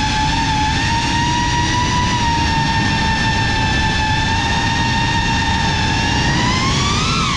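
Brushless motors and ducted propellers of a GEPRC CineLog 35 FPV cinewhoop drone whining at a steady pitch, rising briefly in pitch near the end, over a low rushing noise.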